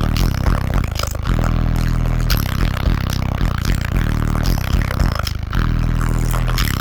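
Car audio system with subwoofers playing bass-heavy music very loud, long deep bass notes pulsing in stretches of about a second, with a rattling, scraping noise over the bass.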